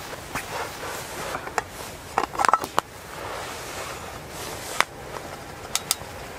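Light metallic clicks and taps from an aluminium mess tin and its wire bail handle being handled and set down, with a cluster of clinks about two to three seconds in and a few single ticks later, over a steady faint hiss.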